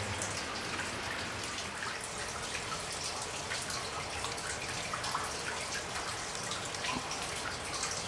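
Water dripping from the roof of an old coal mine into the shallow pool on its floor: many small, irregular drips.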